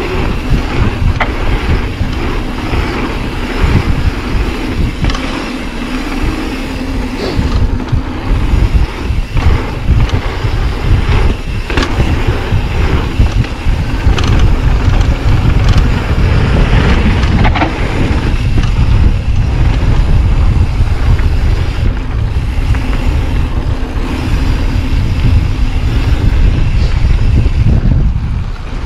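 Mountain bike descending a dirt trail at speed: wind buffeting the GoPro's microphone over the rumble of the tyres, with scattered clacks and rattles from the bike over bumps.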